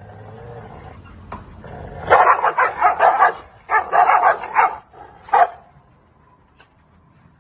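Dogs in a face-off: low snarling for about two seconds, then two bouts of rapid, loud barking, and a single last bark a little after five seconds.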